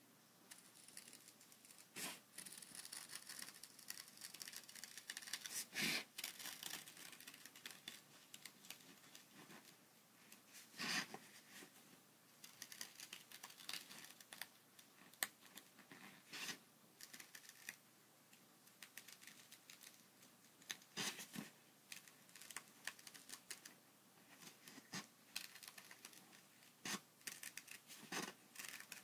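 Small pointed scissors snipping through thin paper in short, irregular cuts, each a crisp click, with brief soft shearing and rustling of the sheet in between. Quiet overall.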